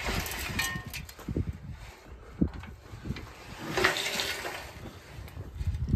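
Aluminium wheel line irrigation pipe and wheel being rolled by hand, rumbling and knocking as it turns, with a sharp knock about halfway through and a rushing swell near four seconds in.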